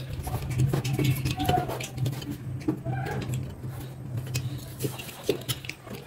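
Small clicks and scrapes of a test lead's connector being pushed and worked at a fridge compressor's terminal pins without seating, over a steady low hum.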